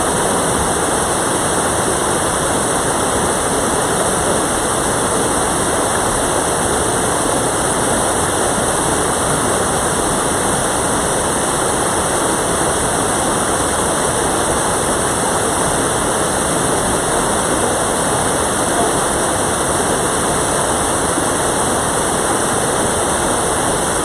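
Mountain valley stream: water rushing steadily, an even unbroken rush with no separate events.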